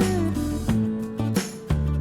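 Background music: an instrumental track with guitar and a steady beat.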